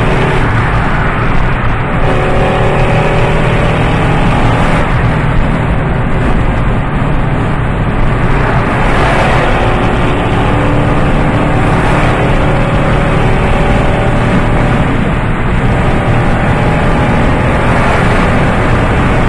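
Ford Focus 2.5 engine and exhaust running loud with a deep rumble, its pitch shifting up and down every few seconds as the revs change.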